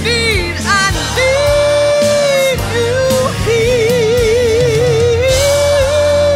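A woman's gospel voice sings an ad-lib over instrumental backing. Quick runs in the first second lead into long held notes, one with a wide vibrato near the middle, ending on a long sustained high note.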